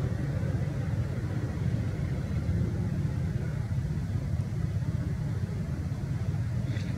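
Steady low rumble with no clear pitch, and a few faint clicks near the end.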